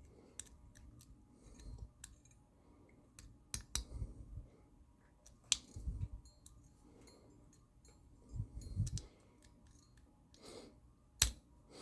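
Faint, irregular clicks and ticks of a hook pick and tension wrench working the pins inside a Paclock 410 Pro padlock, with a few sharper clicks and some dull handling knocks.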